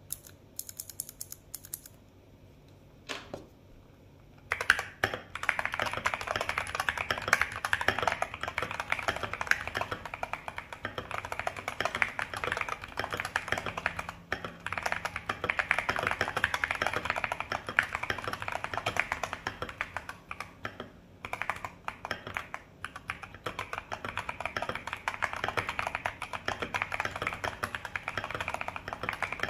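Mechanical keyboard with stock Kailh Polia tactile switches, Akko ASA Retro Carbon keycaps and a Fanoe case, typed on: a few single keystrokes, then fast, continuous typing from about four and a half seconds in, with a short pause about two-thirds of the way through.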